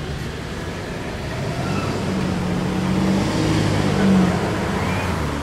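Cars starting off and driving across a railroad grade crossing, their engine hum growing louder to a peak about four seconds in.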